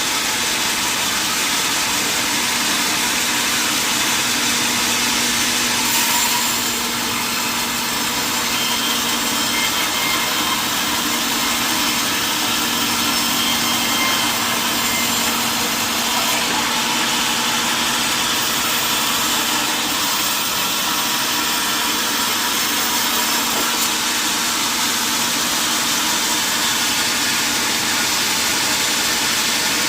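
Sawmill saw machinery running steadily: a constant loud noise with a faint low hum under it.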